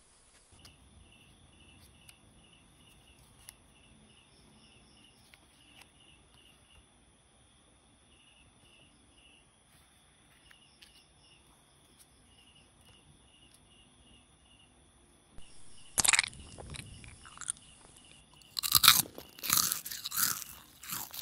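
Faint, rapidly repeated insect chirping, like crickets, then loud crunching in short bursts, once about three-quarters of the way through and again as a cluster near the end.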